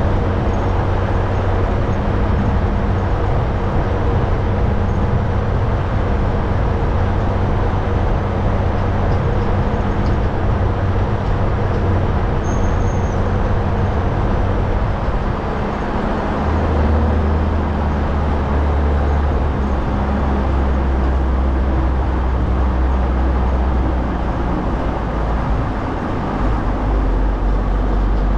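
Caterpillar motor grader's diesel engine running steadily. Its low note drops lower about halfway through and again near the end.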